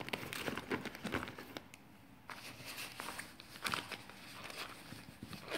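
Handling noise: soft rustling and small clicks and knocks as small items are slipped into a leather clutch, densest in the first second and a half.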